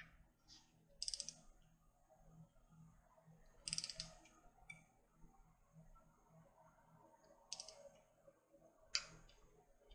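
Click-type torque wrench clicking as each oil pan bolt reaches its 95 inch-pound torque spec, in short sharp clicks about four times, a few seconds apart.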